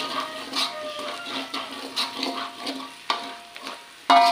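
A metal spatula scrapes and taps around a wok while chopped shallots and garlic fry in oil with a light sizzle, which shows the spice paste being sautéed until fragrant. Near the end the spatula strikes the wok sharply, and the wok rings and then fades.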